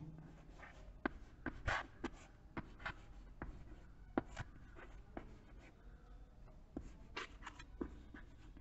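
Faint chalk writing on a chalkboard: an irregular string of short taps and scratches, several a second, as the chalk forms letters.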